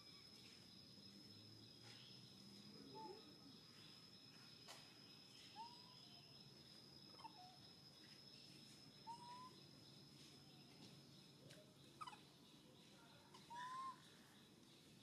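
Faint outdoor ambience: a steady high insect drone, with short chirping bird calls every two seconds or so and a couple of faint clicks.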